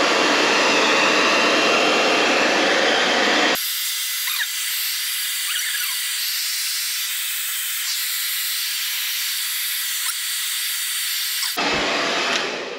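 Handheld hair dryer blowing steadily, heating the adhesive of a car badge to soften it. About three and a half seconds in the sound abruptly turns thin and hissy, its lower rumble gone, then comes back full shortly before the end and fades.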